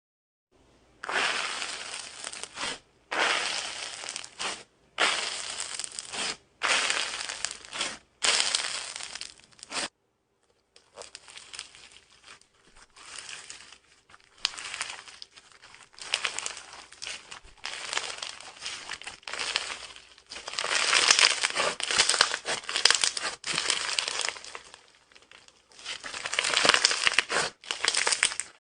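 Slime being squeezed and pressed by hand, giving crackly, crinkling squishes in bursts of one to two seconds, with a short pause about ten seconds in. The crackling then comes softer and grows denser and louder near the end.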